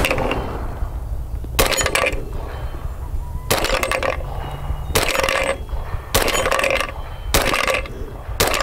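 Suppressed 300 Blackout AR pistol with a 4.75-inch Mos-Tek barrel firing six single shots, evenly paced about one to one and a half seconds apart.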